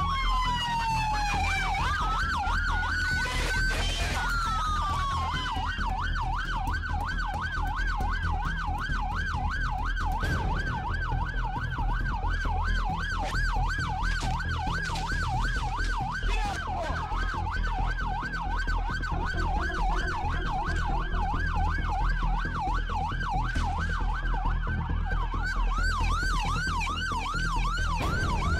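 Police car siren: a slow wail that falls and rises, switching a few seconds in to a rapid yelp that goes up and down about three times a second. A steady low rumble runs underneath.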